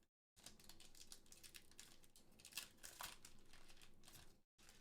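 Faint crinkling and tearing of a trading card booster pack's foil wrapper as it is handled and torn open.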